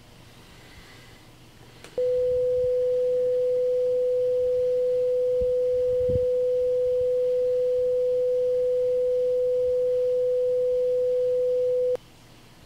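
A single steady, mid-pitched pure sine tone. It comes in about two seconds in, holds at one pitch for about ten seconds, and cuts off abruptly near the end. It is a generated tone standing for one colour of light, its pitch scaled from that colour's wavelength.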